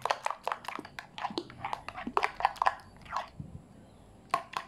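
Metal spoon stirring thick flour batter in a glass bowl: a quick run of wet, squelching clicks, about five a second, that fades out about three seconds in, then two more clicks near the end.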